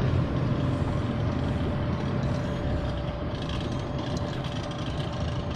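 A motor engine running steadily: a low rumble with a thin constant tone above it.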